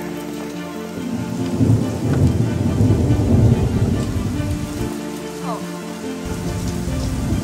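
Heavy rain pouring onto wet pavement, with a deep thunder rumble that swells about two to four seconds in, eases off near the middle and builds again toward the end.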